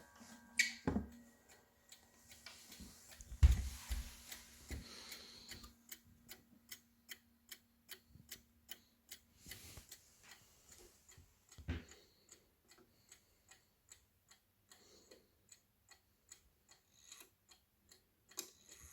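Howard Miller triple-chime clock's movement ticking steadily, between two and three ticks a second. A few louder knocks and thumps come in the first few seconds, the loudest about three and a half seconds in.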